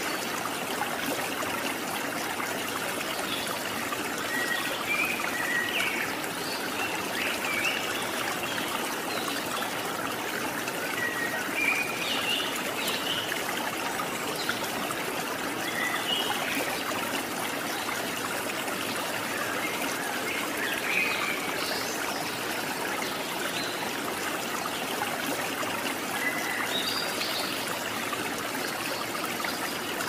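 Steady running, trickling water, with short high bird chirps now and then over it.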